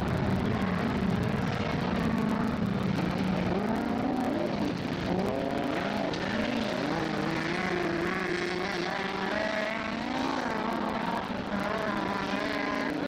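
Several autocross race cars' engines revving hard on a dirt track, their pitch rising and falling as the drivers accelerate and lift, over a steady hiss of engine and tyre noise.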